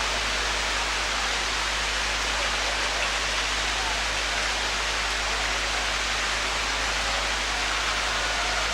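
Steady rain falling: an even hiss of countless drops at a constant level, with a steady low rumble beneath it.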